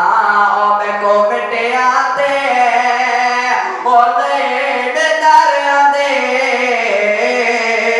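A young man reciting a noha, the Shia mourning lament, solo into a microphone: a chanted melody of long held, bending notes with no break for breath.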